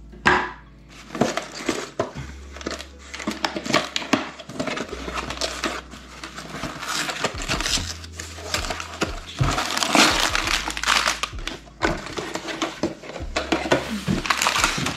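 Plastic bags of Lego bricks crinkling and the loose bricks rattling inside them as a small cardboard Lego set box is opened and emptied, a dense run of rustles and sharp clicks.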